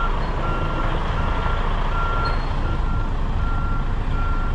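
Backup alarm beeping steadily, about one beep every three-quarters of a second, while a semi-truck reverses a trailer into a loading dock, over the low rumble of the truck's diesel engine.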